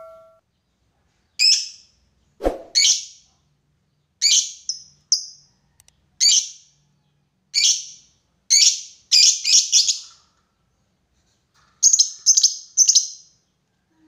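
Fischer's lovebird calling with short, sharp, high-pitched chirps, some single and some in quick runs of three or four. A single low knock comes about two and a half seconds in.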